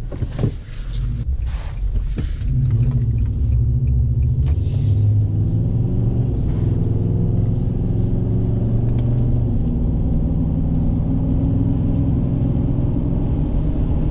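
Pickup truck engine and road noise heard from inside the cab as the truck drives down the road: a few knocks and rattles in the first couple of seconds, then the engine picks up and runs steadily at cruising speed.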